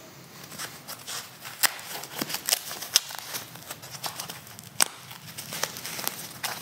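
Protective foam packing wrap being torn and pulled back from a motorcycle handlebar: an irregular crackling and crinkling, with a few sharper snaps standing out.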